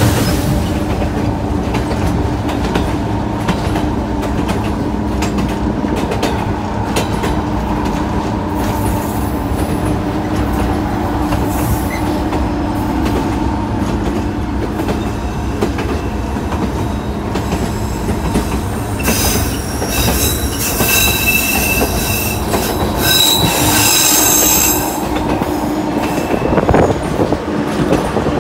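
White Pass & Yukon Route narrow-gauge passenger train running on the track, heard from an open car platform: a steady rumble of wheels on rails. About two-thirds of the way through, a high wheel squeal comes in for several seconds as the train rounds a curve.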